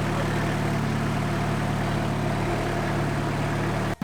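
Car engine idling steadily, with an even low drone; the sound cuts out for an instant near the end.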